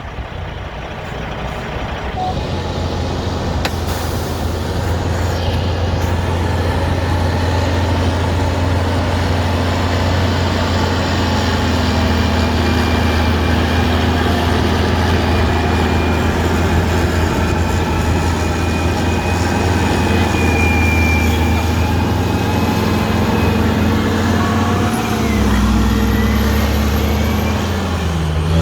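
Heavy haul truck's diesel engine driving under load. Its deep steady drone builds over the first few seconds, and the engine note shifts a few seconds before the end.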